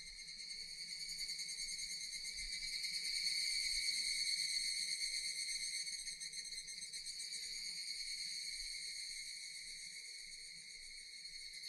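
Cicadas droning in a continuous high buzzing chorus that swells louder about four seconds in and eases off near the end.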